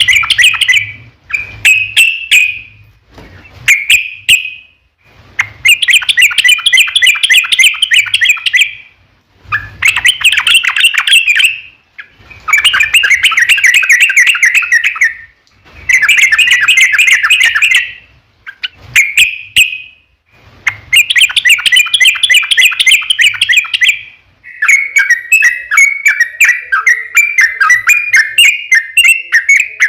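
Yellow-vented bulbul (trucuk) song: loud, bubbly phrases of rapid notes, each a second or three long with short pauses between. For the last few seconds it turns into one unbroken run of chattering notes.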